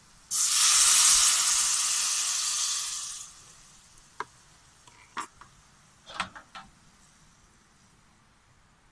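Food tipped into a hot frying pan of mushrooms on a portable gas stove hits the pan and sizzles loudly, dying away over about three seconds. A few light clinks of a utensil against the pan follow.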